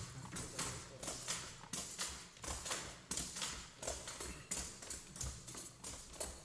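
Dancers' shoes stamping and tapping on a wooden stage in a steady rhythm of sharp strokes, about three a second, with the instruments silent.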